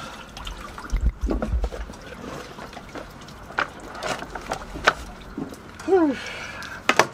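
Water trickling and dripping off a scuba diver and his gear as he climbs out onto a yacht's stern steps, with several sharp knocks of equipment against the boat.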